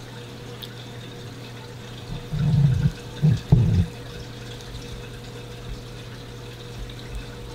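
Steady low electrical hum, with two short, low murmurs of a man's voice about two and a half and three and a half seconds in.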